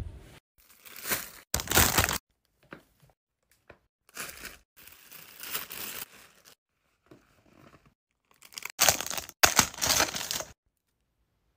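Clear plastic packaging crinkling in about six short bursts as items are handled and unwrapped, with sudden dead silences between them.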